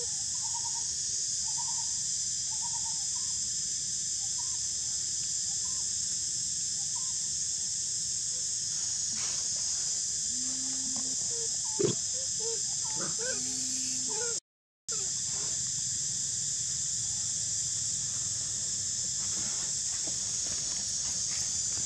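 Steady high drone of insects with scattered bird calls: a run of short repeated notes in the first few seconds, then a few low hoots and chirps about halfway through. There is a brief cut to silence about two-thirds of the way in.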